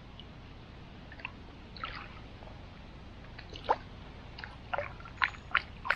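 Small splashes and drips of river water as hands dip into the shallows: a few soft ones early on, then a cluster of sharper splashes in the last two seconds, the loudest about two-thirds of the way in.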